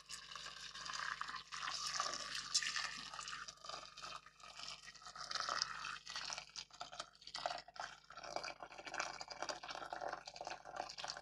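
Boiling water being poured into a pot of pearl barley and ribs, a pour that swells and eases in strength as it goes.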